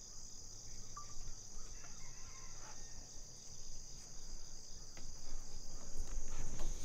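A steady, high-pitched chorus of insects drones without a break. Low rumble from the handheld microphone grows toward the end.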